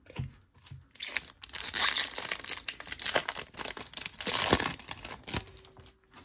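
Foil trading-card pack wrapper being torn open and crinkled by hand: a dense run of crackling and tearing that starts about a second in and dies away near the end.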